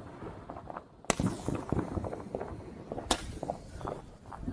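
Two sharp firework shots about two seconds apart, with fainter pops between them.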